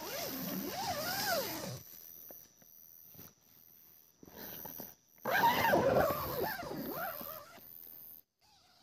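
Two long animal calls with sliding, wavering pitch, one at the start and one about five seconds in, over insects chirping in a steady, evenly spaced high pulse.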